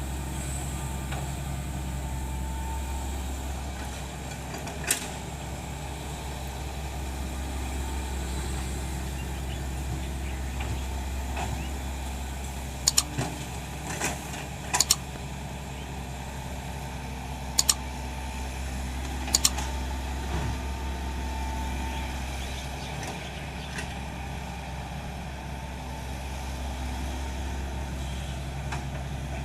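Hitachi Zaxis 110 excavator's diesel engine running steadily, with a handful of sharp knocks now and then, some in quick pairs.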